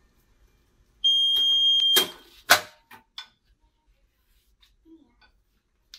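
A heat press's timer alarm gives one steady, high-pitched beep of about a second, signalling that the pressing time is up. Right after it come two loud clunks about half a second apart and a few lighter clicks as the press's clamp is released and the top platen is swung open.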